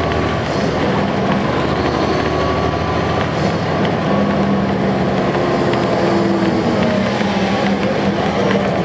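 A NABI 416.15 transit bus's Caterpillar C13 ACERT diesel engine idling steadily while the bus stands still, with a slightly stronger drone from about halfway through.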